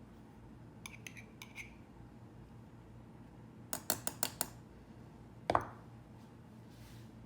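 Dishes and glassware clinking: a few light taps about a second in, a quick run of five sharp clinks around four seconds in, then a heavier knock with a short ring about five and a half seconds in.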